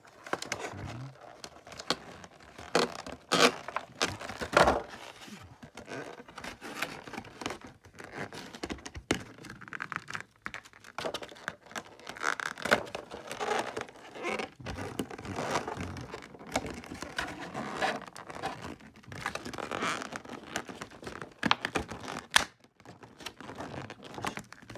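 Packaging of a Pokémon card box crinkling and tearing as it is opened and handled by hand, with a few sharp knocks and clicks.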